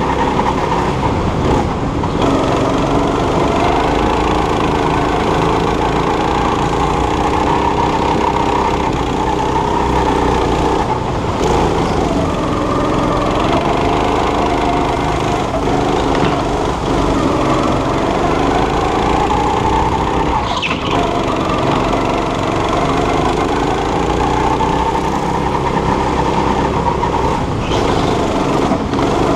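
Go-kart's small petrol engine heard from on board, revving up and dropping back again and again as the kart accelerates out of corners and lifts for the next one.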